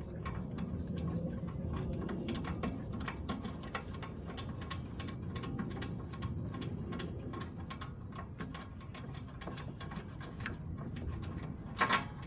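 Ratchet wrench clicking in irregular runs as a 13/16-inch spark plug socket backs the spark plug out of the snowblower's engine, with a louder knock near the end.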